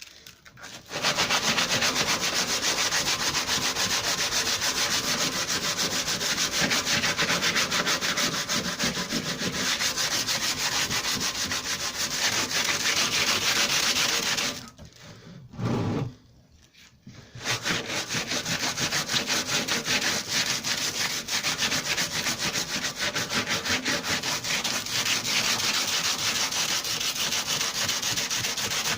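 Coarse 80-grit sandpaper rasping over hardened metal filler on a lawnmower's steel deck, sanding it down. There is a break of about three seconds around the middle.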